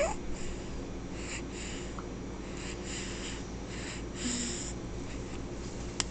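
Newborn baby feeding from a bottle, breathing noisily through the nose in short snuffly puffs between sucks, roughly two a second, with a small squeak at the start.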